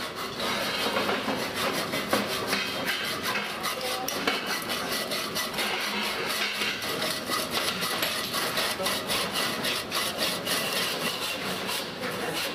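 Quick, repeated scraping strokes of metalwork on an old cast-iron Molteni kitchen stove as it is dismantled, like sawing or filing.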